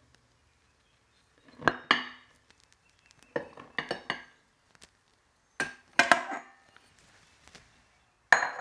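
Sharp knocks and clinks with a short metallic ring against a stainless steel stand-mixer bowl, as a bowl of flour is tipped and tapped out into it. The hits come in four clusters a second or two apart.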